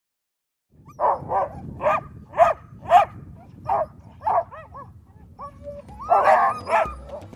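Sled dogs barking and yipping in short, quick calls, about two a second, then after a short lull a louder burst of several dogs calling at once near the end.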